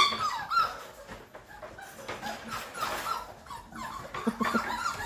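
Young puppies whimpering: a string of short, high-pitched cries that bend in pitch, loudest at the very start.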